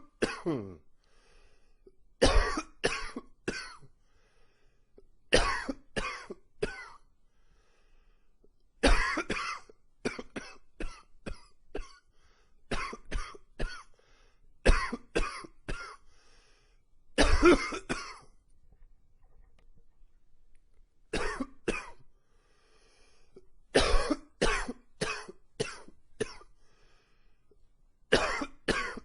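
A man coughing in repeated fits: clusters of two to five sharp coughs every few seconds, with short pauses for breath between, brought on by seasonal allergies by his own account.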